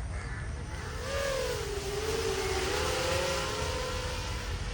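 iFlight Chimera 7 Pro V2 7-inch FPV quadcopter's brushless motors and propellers whining as it climbs away. The pitch swoops up about a second in, then settles and wavers with the throttle.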